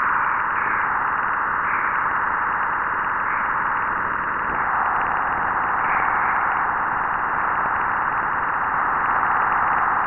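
Juno spacecraft's Waves instrument electric-field data from inside Jupiter's magnetosphere, played back as sound: a steady hiss in a band of middle pitches, with faint brief swells on top and its lower edge dipping slightly about halfway through. It is trapped continuum radiation, radio waves trapped in a low-density cavity of the magnetosphere, heard just after the crossing of the magnetopause.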